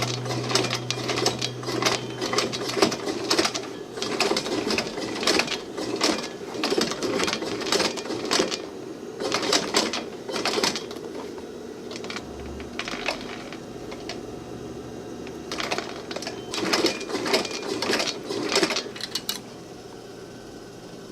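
Sewing machine stitching leather: a steady motor hum with runs of rapid clicking stitches, stopping a little before the end.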